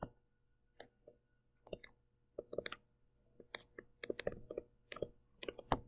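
A pen stylus tapping on a tablet surface during handwriting: faint, irregular light clicks, mostly in small clusters of two or three.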